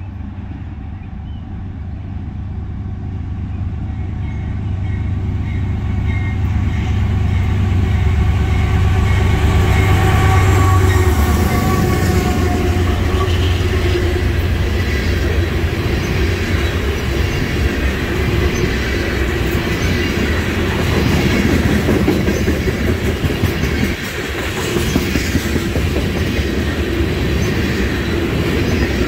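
A Norfolk Southern diesel freight locomotive rumbling louder as it approaches and passes, loudest about ten seconds in. Then a long string of oil tank cars rolling by with steady wheel clatter on the rails.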